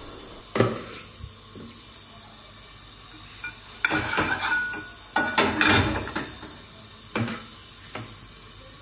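Metal spoon clinking and scraping against a metal frying pan as egg is spread in hot oil: a handful of short clinks and clatters, busiest between about four and six seconds in.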